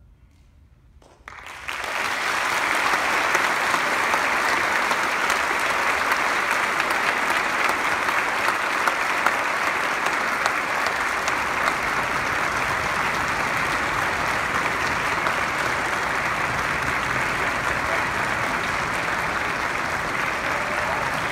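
An audience applauding. After about a second of quiet it starts and keeps up a dense, steady clapping.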